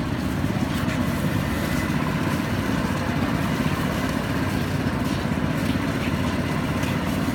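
Steady low engine rumble of street traffic, with no distinct passes or breaks.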